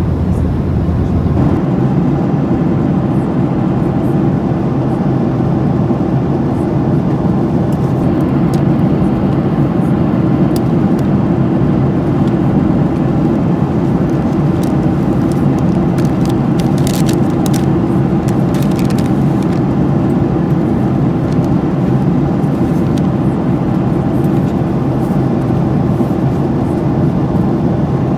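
Steady drone of a Boeing 737-800's CFM56-7B engines and airflow, heard from inside the passenger cabin. A few faint clicks come around the middle.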